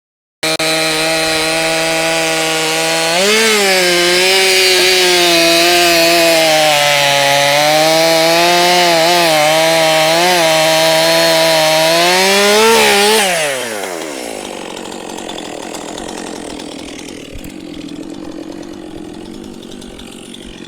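Stihl MS 400 C two-stroke chainsaw at full throttle, cutting through a round of cedar. Its engine pitch sags and wavers as the chain loads in the wood. About 13 seconds in it revs briefly, then drops off throttle and winds down to a much quieter idle.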